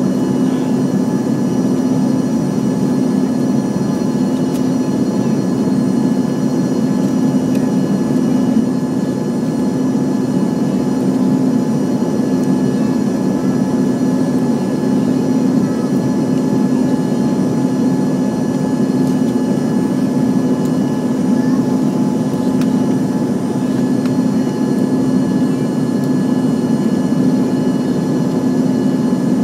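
Jet airliner's engines heard from inside the passenger cabin during the climb after takeoff: a steady drone with a strong low hum and several faint, steady high whines over it.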